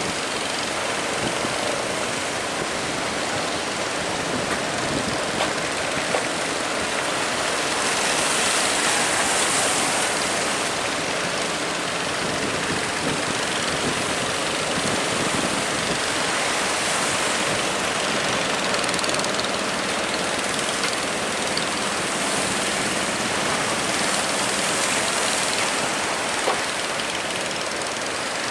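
Steady rushing noise of rough sea and wind around a ship, swelling a few times as waves break.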